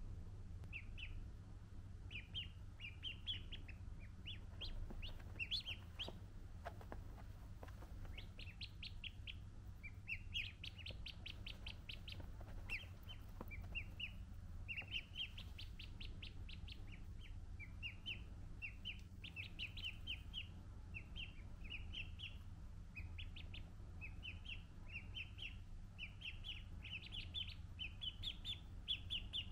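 Ducklings peeping in runs of short, quick, rising chirps, over a low steady hum.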